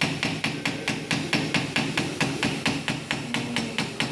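Small hammer tapping lightly and rapidly, about five taps a second, on the end of a soft brass rivet in a Victorinox Swiss Army knife, flattening (mushrooming) it onto its bushing.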